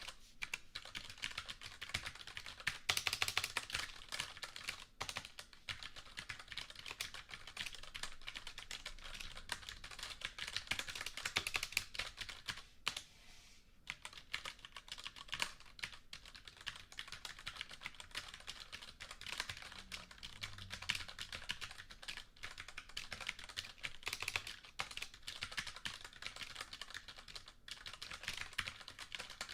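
Computer keyboard typed on continuously, a rapid run of key clicks with a brief pause about halfway through.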